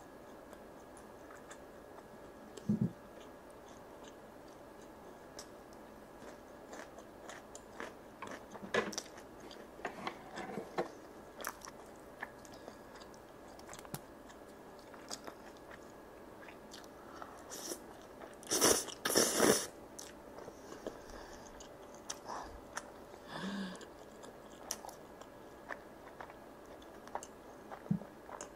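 Close-miked chewing and biting of sauce-glazed chicken, rice cakes and ramen noodles, with many small wet mouth clicks. A little past halfway, two loud noisy bursts as noodles are slurped.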